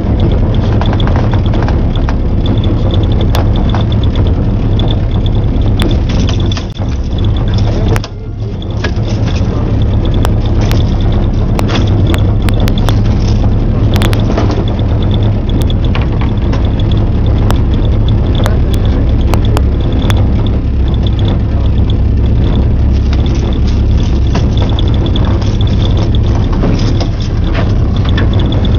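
Outboard motor running steadily at trolling speed, its hum carried through a metal boat's hull, with a few sharp knocks and clicks from gear handled in the boat.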